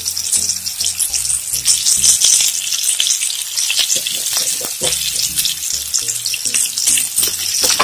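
Mustard seeds sizzling in hot oil in a frying pan, with scattered crackles as they begin to splutter, the first stage of tempering. A spatula stirs through the oil about midway.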